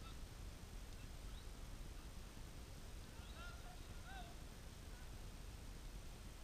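Low steady outdoor rumble with a few faint, short distant calls about three to four seconds in.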